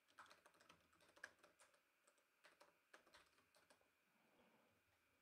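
Faint typing on a computer keyboard: a quick, uneven run of keystrokes that stops a little over halfway through.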